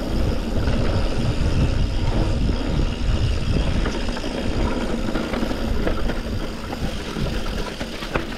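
Rough, uneven rumble of wind buffeting the camera microphone while a mountain bike is ridden along a trail.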